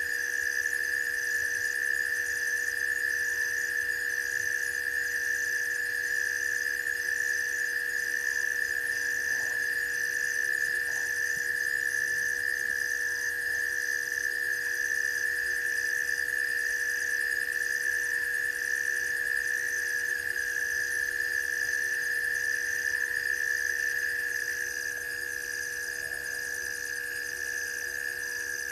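A night chorus of insects at a waterhole: a loud, steady high drone with a higher chirp pulsing a little over once a second.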